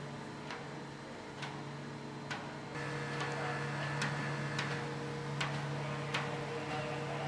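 Heavy-load transporter's drive running with a steady low hum, stepping up louder about three seconds in, with a sharp tick about once a second.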